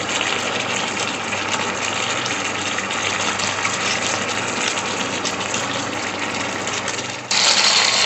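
Mutton cooking in its own juices in a nonstick pan, the liquid bubbling and sizzling steadily. Near the end it jumps to a louder, hissier sizzle.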